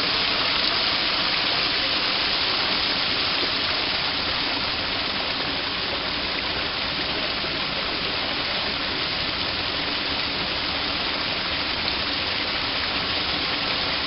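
Small waterfall: thin streams of water falling off a stone ledge and splashing into a pool, a steady rush that grows slightly fainter a few seconds in.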